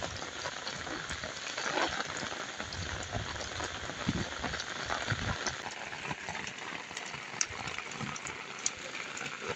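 Heavy rain falling and splattering on wet pavement, a steady hiss with scattered sharp drop ticks. A few low thumps come in the first half.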